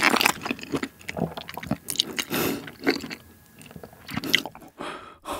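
Close-miked chewing of a mouthful of chili-pepper chicken with a coating that is not crispy; the chewing grows sparser after about three seconds.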